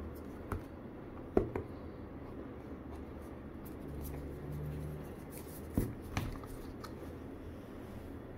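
Cardboard retail box being handled and opened: a few light taps and knocks, the loudest about a second and a half in, with soft paper-like rustling over a low steady background hum.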